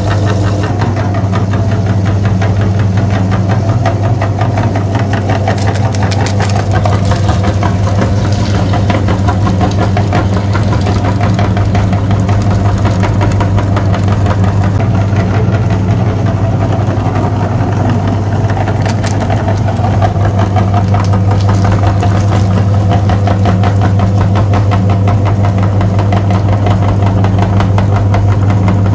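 A motor or engine running steadily with a strong low hum and a fast, even pulsing.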